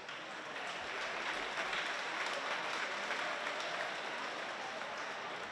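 An audience applauding, many hands clapping; the applause swells over the first second and then holds steady.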